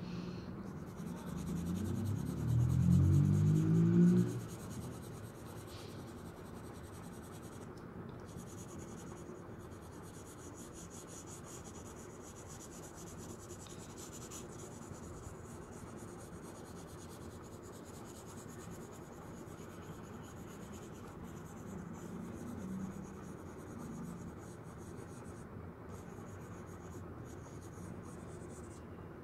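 Pencil lead scratching and rubbing on drawing paper in quick, fine shading strokes. Near the start, a louder low sound rises in pitch for about two seconds.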